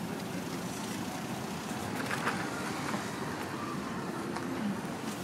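City street traffic noise: a steady hum of cars on the road, with a few faint clicks and knocks.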